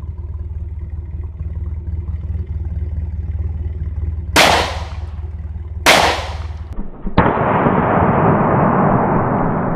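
Two shots from a Springfield XDS 9mm pistol about a second and a half apart. After them comes a further sharp crack and then a loud, steady hiss.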